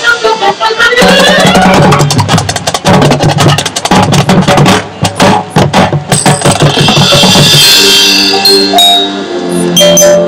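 High school marching band with drum line playing a percussion-heavy passage. It opens with a rising run, has rapid drum strokes through the middle, and settles into held chords near the end.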